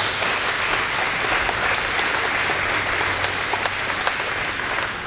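Audience applauding: many people clapping together, steady throughout and easing slightly near the end.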